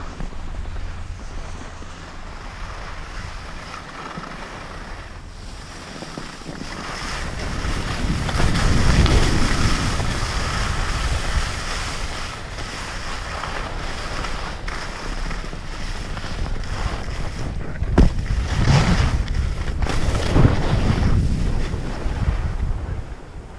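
Wind buffeting the microphone and skis hissing over snow on a downhill run. The rush swells louder twice, and there is one sharp knock about eighteen seconds in.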